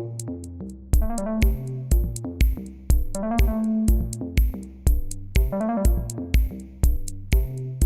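Electronic music with a steady beat of about two kick-drum hits a second under synthesizer notes.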